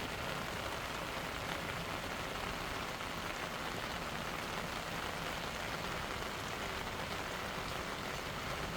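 Steady rain falling on a rooftop: an even hiss of drops hitting hard surfaces.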